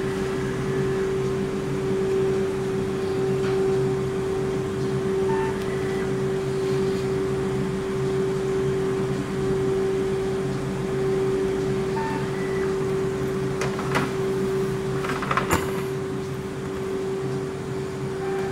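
BKN-S82 soft-serve ice cream machine running while it dispenses continuously: a steady hum with one strong held tone and lower tones under it, from its twin compressors and beater motors. A few sharp clicks sound near the end.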